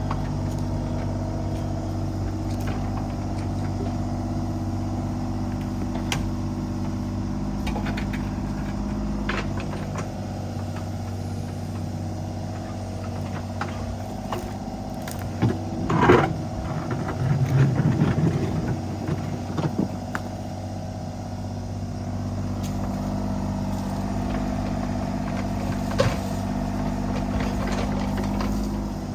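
Kubota U35-4 mini excavator's diesel engine running steadily while it digs, with scattered sharp clanks and, about halfway through, a louder scraping clatter of the bucket in stones and dirt.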